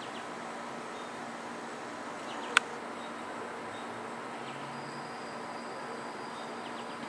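Steady background hiss with faint, short high chirps scattered through it, and one sharp click about two and a half seconds in.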